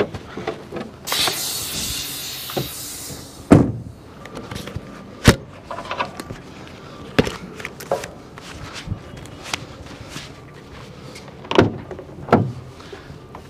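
Sharp metallic clacks and knocks at irregular intervals, from the curtain buckles of a curtainsider trailer being unlatched, heard through the open truck cab door. Near the start there is a hissing rush lasting about two seconds.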